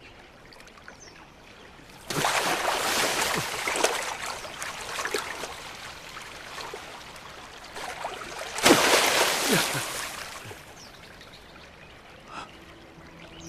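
Water splashing and rushing in two sudden loud surges, the first about two seconds in and the second, louder one a little past halfway, each fading away over a second or two.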